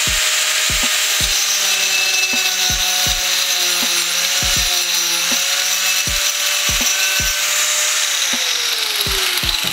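Angle grinder with a 115 mm tungsten-carbide-grit wood-cutting disc cutting into a thick wooden beam, a steady, dense high-pitched rasp over the motor's whine. The whine drops in pitch near the end. Background music with a steady low beat runs underneath.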